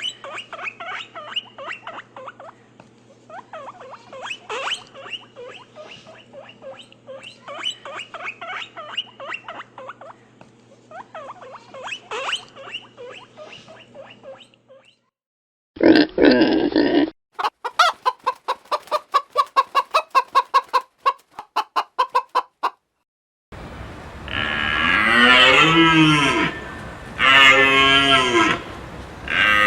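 A run of separate farm-animal calls: chickens clucking for about the first half, then a short loud call, a quick series of sharp pulses, and from about three-quarters in, a cow mooing in long drawn-out calls.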